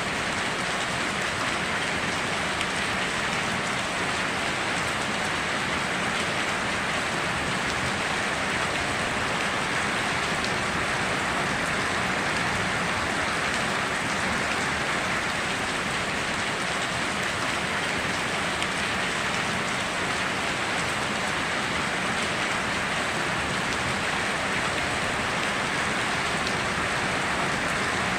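Steady heavy rain falling on foliage and ground, an even unbroken hiss with no thunder.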